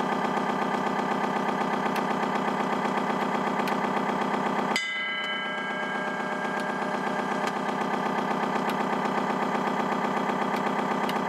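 An RC model tugboat's electronic sound module plays a simulated diesel engine through its small loudspeaker, a steady running sound with a fast even pulse. About five seconds in, the sound switches abruptly to a thinner version with a brief ringing tone at the change.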